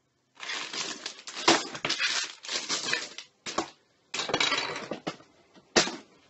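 Clear plastic bags of LEGO pieces crinkling as they are handled, with the bricks clicking and rattling inside, in several short stretches broken by brief silences.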